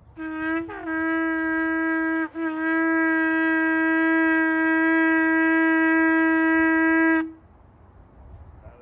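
Shofar blown in one long, steady blast. The pitch scoops upward at the start, there is a brief break about two seconds in, and the note then holds until it cuts off about seven seconds in.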